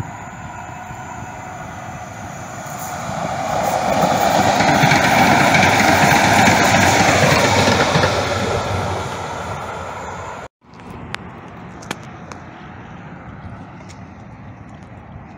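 Electric light-rail train passing by on its tracks: the wheel and motor noise builds over a few seconds, peaks, and fades as it goes by, with a tone that slides down in pitch as it passes. The sound then cuts out abruptly and gives way to quieter background traffic noise with a few faint ticks.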